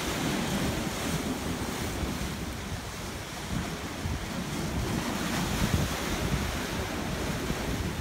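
Sea surf washing on the shore, with wind buffeting the microphone in an uneven low rumble.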